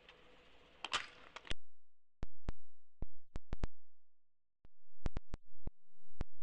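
Editing glitches: a short crackle about a second in, then about a dozen sharp clicks, unevenly spaced, with dead silence between them.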